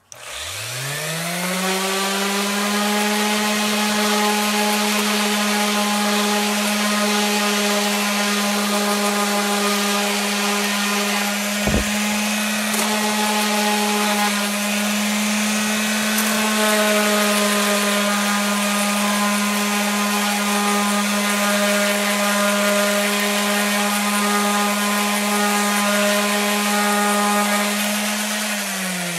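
Handheld electric sander spinning up, then running loud and steady as it sands a piece of raw wood. A brief knock comes about twelve seconds in, and the motor winds down at the very end.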